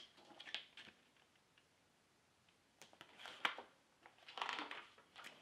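Faint handling noises: a few light clicks, then the pages of a paper booklet being turned, two short rustles.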